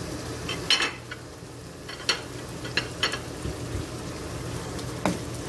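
Chicken, onion, garlic and ginger sizzling in hot oil in a wok, with a wooden spatula scraping and knocking against the pan a handful of times as it stirs.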